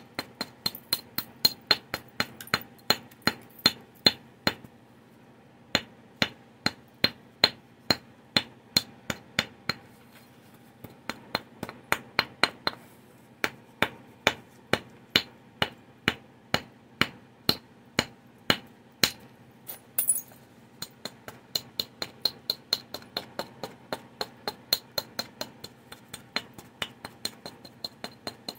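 Antler billet striking the edge of a stone biface being knapped into a Clovis point: runs of sharp taps at about two to three a second, broken by short pauses. One brighter snap comes about two-thirds of the way in.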